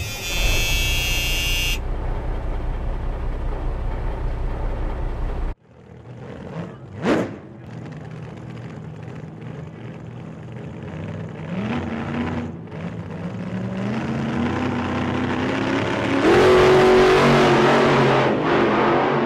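A Toyota Fortuner's engine heard from inside the cabin while driving. A loud low rumble stops abruptly about five seconds in, and a short whoosh sweeps up and down soon after. From about eleven seconds the engine pitch rises in steps as it accelerates through the gears, and it is loudest near the end.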